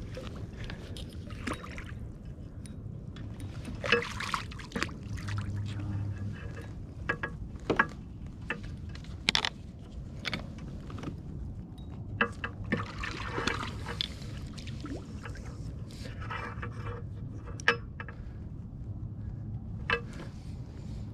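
Water splashing and sloshing beside a kayak as a hooked redfish thrashes at the surface during the fight, with scattered sharp knocks at irregular intervals.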